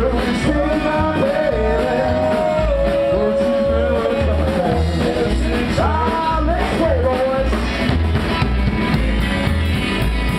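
Live country rock band playing: upright double bass, drum kit and electric guitar. Bass notes pulse in a steady rhythm underneath a held, bending melody line in the middle of the song.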